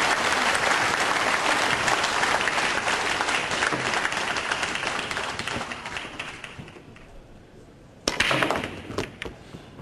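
Audience applause slowly dying away over the first six or seven seconds. About eight seconds in comes the sharp crack of a 9-ball break shot, followed by pool balls clacking against each other and the cushions.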